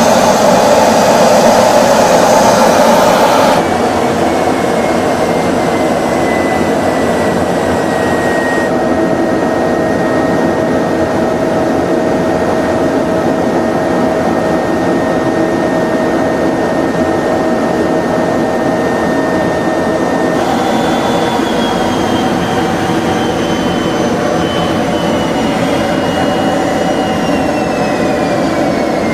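Fighter jet engine and rushing air heard inside the cockpit: a steady loud noise with a high whine that changes abruptly a few times. In the last third the whine slowly falls in pitch.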